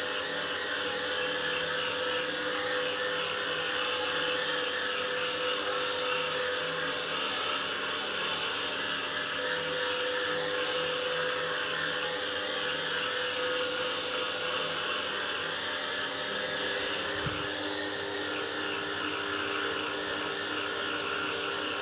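Bissell SpinWave spin mop's motor running steadily, a continuous whirring hum as its two pads spin against a hard floor. The hum's pitch shifts slightly about three-quarters of the way through, and there is a faint tick near the end.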